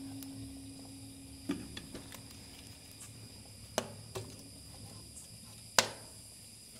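Split wood logs being set onto the fire in an offset smoker's steel firebox: a few sharp knocks of wood on metal at uneven gaps. The metal's ringing from an earlier hit fades out about a second and a half in.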